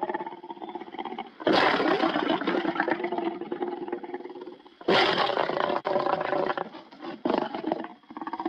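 Lion roaring sound effect: a long roar starts suddenly about one and a half seconds in and fades over a few seconds, a second one starts about five seconds in, and a shorter one follows near the end.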